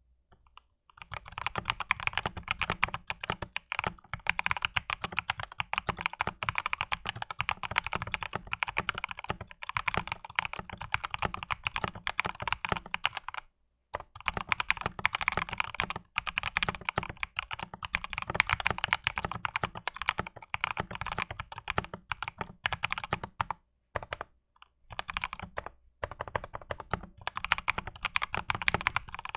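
Typing sound test on a wooden-case 65% mechanical keyboard with unlubed Gateron Oil King linear switches on a polycarbonate plate, the case damped with a silicone sheet and polyfill. Rapid continuous keystrokes start about a second in, with short pauses around the middle and again later. The typing has a clean wooden thock with most of the case's hollowness gone.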